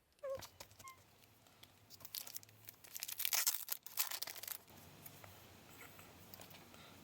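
Plastic packaging being torn and crinkled by hand, a run of crackling and tearing that is loudest in the middle.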